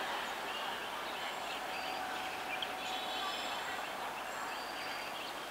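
Steady outdoor trackside ambience with faint high chirps and squeaks. An electric multiple unit local train is approaching in the distance, its running noise low and blended into the background.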